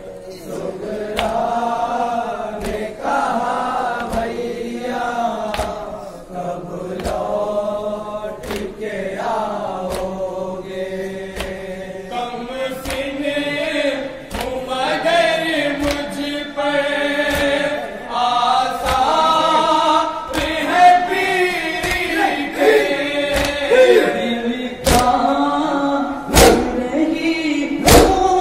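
Group of men chanting a nauha, a Shia mourning lament, in unison over microphones, with a steady beat of palms slapping chests (matam) about once a second.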